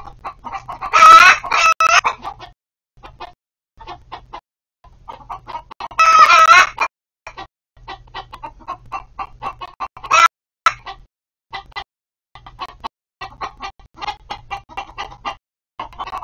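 A flock of backyard hens clucking in quick, short notes, with loud, drawn-out squawking calls about a second in, again about six seconds in, and a shorter one near ten seconds.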